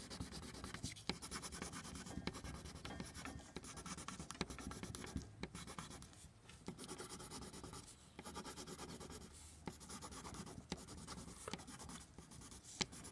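Graphite pencil scratching on paper, pressed down very hard in quick back-and-forth strokes to lay down the darkest tone, with a couple of brief pauses.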